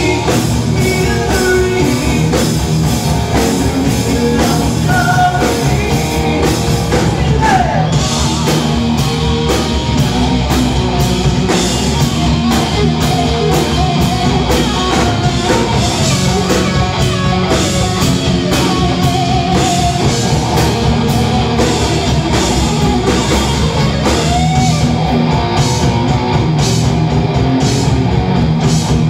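A heavy metal band playing live: electric guitar over a drum kit keeping a steady beat.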